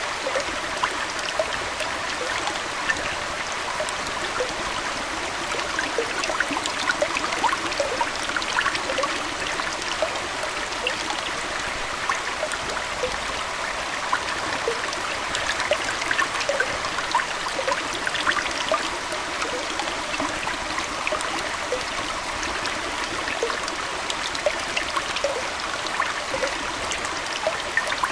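Aquarium water trickling steadily, with a constant scatter of small bubbling plinks.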